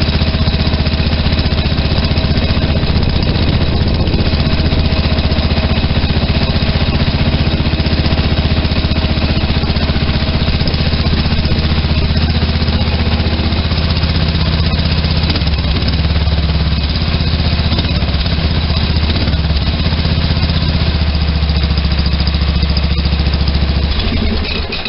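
John Deere 111 lawn tractor's single-cylinder engine running steadily through a newly fitted stack exhaust, with a chugging beat; its note shifts about halfway through.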